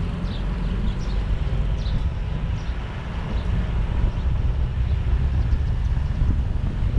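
Steady low road-and-wind rumble of a moving vehicle, with wind buffeting the microphone, growing slightly louder toward the end. A few faint high chirps sound in the first couple of seconds.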